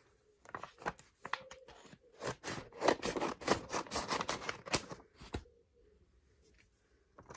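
Handling noise from a stack of photo cards and their packaging being unwrapped and sorted: a quick run of sharp clicks and scraping rustles, densest in the middle few seconds.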